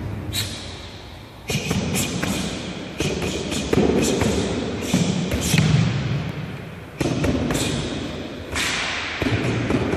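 Karate punches landing on a hand-held strike pad in quick combinations. Each blow is a sharp smack with a short echo from the sports hall.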